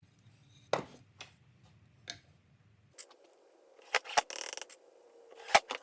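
Scattered sharp clicks and knocks from workshop handwork on wood, with a short rasp about four seconds in and the loudest knock near the end.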